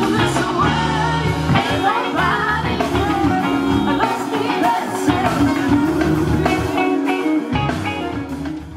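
Live band playing, with electric guitars prominent and singing over it. The music fades out near the end.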